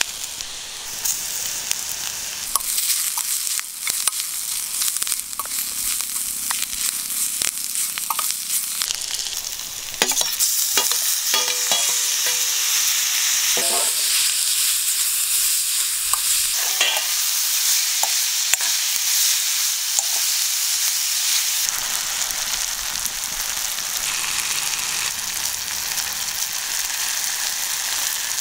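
Onions and vegetables sizzling in a wok over a wood fire, stirred with a steel ladle that scrapes and clicks against the pan. About ten seconds in the sizzle jumps suddenly louder, as when chopped tomatoes go into the hot oil.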